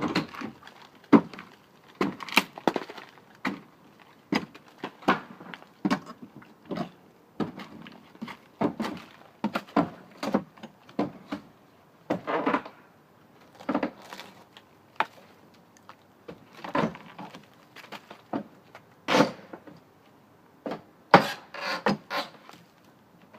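Irregular wooden knocks and scraping strokes, a few each second with short gaps between, as damaged wood is worked by hand.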